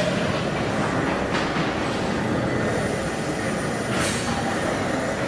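Victorian James Watt & Co. rotative steam beam engine running, a steady mechanical clatter and rumble of its beam, links and rods, with a few short sharp bursts of noise.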